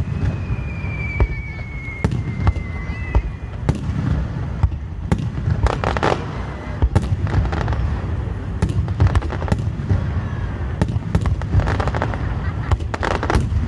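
Aerial fireworks shells bursting one after another: many sharp bangs over a continuous low rumble. In the first few seconds there is a slowly falling whistle.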